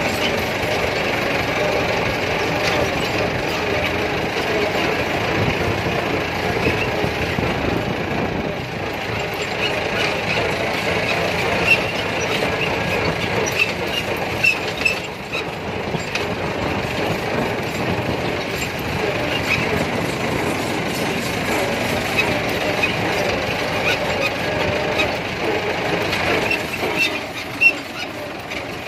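Massey Ferguson 375 tractor's four-cylinder diesel engine running steadily under way as the tractor drives over rough ploughed ground, with a few brief knocks.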